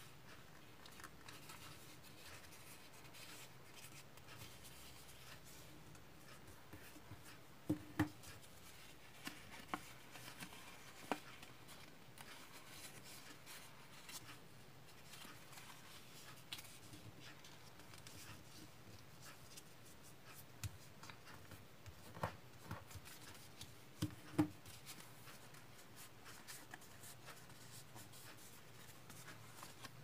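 Sheet of origami paper being folded and creased by hand: soft rustling with scattered sharp crackles of the paper, the loudest about eight seconds in and again about twenty-four seconds in.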